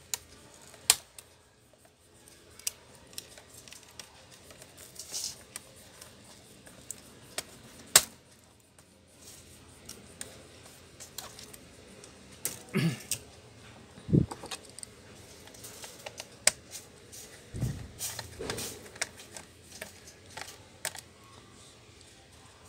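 Plastic laptop case parts being pried and handled: sharp clicks and snaps of clips on the Lenovo IdeaPad Y460's hinge cover as it comes off, with a few duller knocks of parts set down on the bench.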